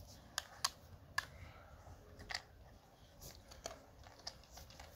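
Faint, irregular clicks and taps of a dog's muzzle and teeth working at a plastic muffin tray as she noses for treats under the balls.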